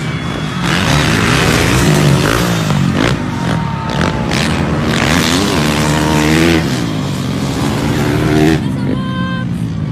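Motocross bike engines revving hard as the bikes race past on a dirt track, several engines at once, their pitch rising and falling with the throttle.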